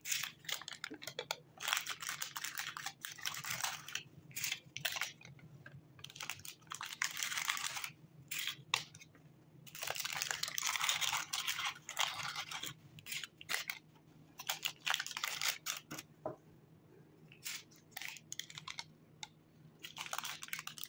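Paper candy cups rustling and crinkling in gloved hands as chocolate truffles are pressed into them and set into a gift box, in a series of short bursts with pauses between.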